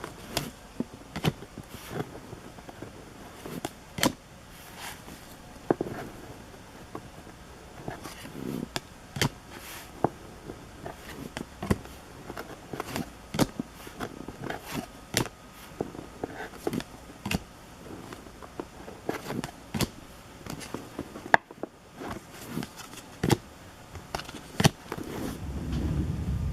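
Trading cards being handled and flipped through by hand: irregular sharp snaps and clicks of card stock, roughly one or two a second, over light rustling.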